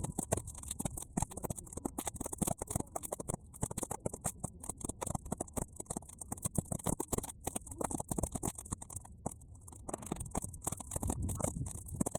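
Bonfire of half-dry weeds crackling and popping, a fast irregular stream of sharp snaps over a steady high hiss.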